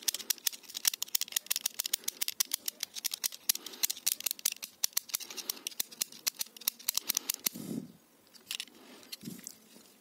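Small knife blade scraping the metal switch contacts of a microwave oven's timer/thermostat to clean them, in quick scratchy strokes several times a second, stopping about seven and a half seconds in.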